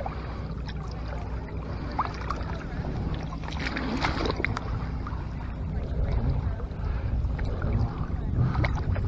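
Shallow lake water sloshing and splashing as a striped bass is released by hand, with several short splashes over a steady low hum.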